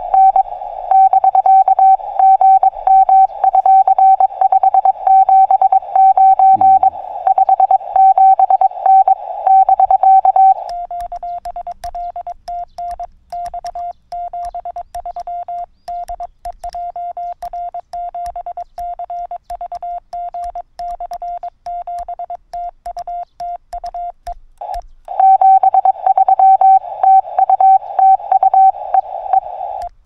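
Morse code (CW) tones from a Yaesu FT-818ND transceiver: a single keyed tone beeping out dits and dahs. A louder, slightly higher-pitched signal keys for the first ten seconds or so and again near the end, with a quieter, slightly lower-pitched signal in between.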